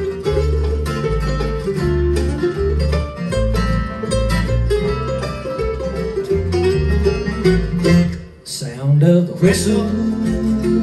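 Live bluegrass band playing an instrumental break: banjo, acoustic guitars and mandolin picking over a plucked upright bass keeping a steady beat. The band drops briefly about eight seconds in, then comes back in.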